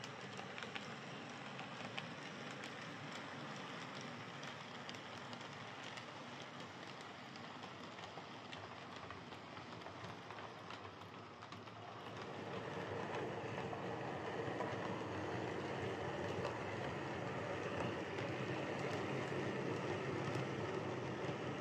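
Heljan OO gauge Class 17 model diesel locomotive running on track with a rake of vans, a steady rolling rattle with frequent light clicks, louder from about twelve seconds in as the train passes close by. It runs without the pulsating vibration noise, its flywheels now sitting true.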